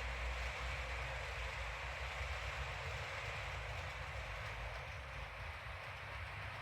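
HO scale model coal train running steadily along the layout track: an even rolling hiss of wheels on rail over a low motor rumble.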